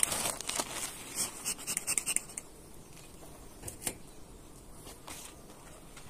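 Quick run of sharp clicks and scrapes, dense for about the first two seconds, then a few isolated clicks: hands and a tool working at a wooden beehive during an inspection.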